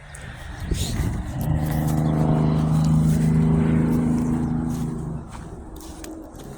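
An engine hums at a steady pitch, swelling louder over a couple of seconds and then fading away, like a motor vehicle passing.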